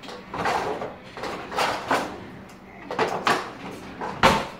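A series of household knocks and scrapes, like doors or drawers being worked and a pan being handled, while the baked chicken is taken out. There are four or five separate knocks, the sharpest and loudest near the end.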